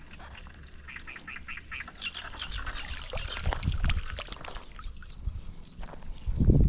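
Water splashing and dripping in a run of small splashes lasting a few seconds, over a steady high whine. A few loud low thumps come near the end.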